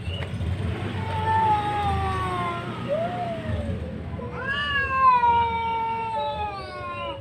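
Cats caterwauling: long, slowly falling yowls, a short rising-and-falling one about three seconds in, then another long yowl from about four seconds that overlaps a lower one. Rival tomcats yowling over a female they are contesting.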